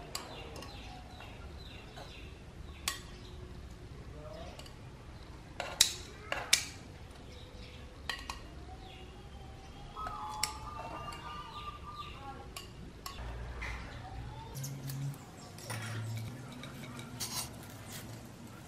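Metal tongs clicking and clinking against a plate as tomato slices are lifted and set down: scattered sharp knocks, loudest in a quick cluster of three about six seconds in.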